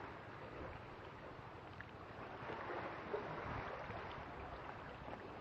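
Faint steady rushing noise of wind and water.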